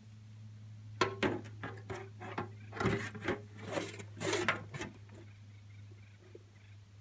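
A run of irregular knocks, scrapes and rustles of garden material being handled in a wheelbarrow, lasting about four seconds from a second in.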